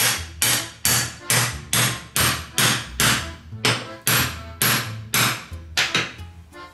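A metal hammer peening over the end of a steel pivot pin in a pedal bracket: about fifteen sharp metal-on-metal strikes, a little over two a second, that stop shortly before the end. The blows mushroom the pin's head to rivet it in place.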